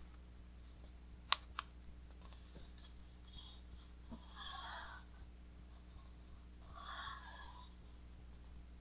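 Quiet handling of a large art book as a heavy page is turned: two sharp clicks a little over a second in, then two soft rushing sounds about four and seven seconds in.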